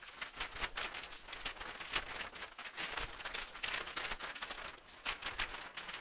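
Intro sound effects under an animated logo: a rapid, irregular run of short noisy hits and swishes, with no tune and no voice.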